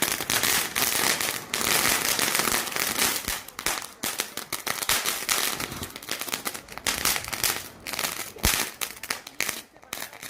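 A misfiring firecracker fizzing and crackling rather than bursting: a dense spitting crackle for about seven seconds that then thins to scattered crackles, with one sharp pop about eight and a half seconds in.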